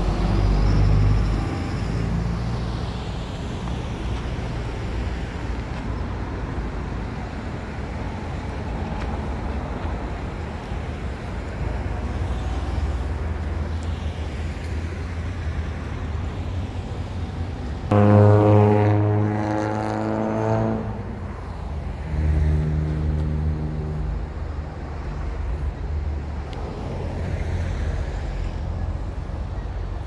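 Road traffic passing on a nearby road, a steady low rumble, with a louder vehicle engine going by about two-thirds of the way in and another shortly after.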